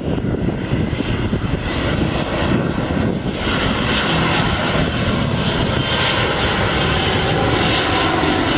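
Airliner engines running, a dense steady drone whose high-pitched whine fills in and grows a little louder from about three seconds in as the aircraft comes closer.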